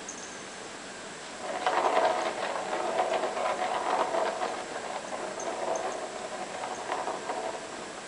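Plastic ball rolling and rattling around the track of a round cat scratcher toy, with many quick clicks. It starts about a second and a half in and rises and falls until near the end.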